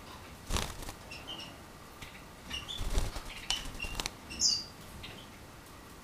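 Canary fluttering its wings as it perches on a finger, in a short spell about half a second in and a longer one from about two and a half to four seconds in, with a few short, high chirps. The loudest chirp comes about four and a half seconds in.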